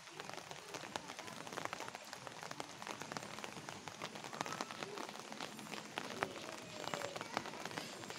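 Light rain pattering on a wet lane and its surroundings: a steady soft hiss full of scattered small drip ticks.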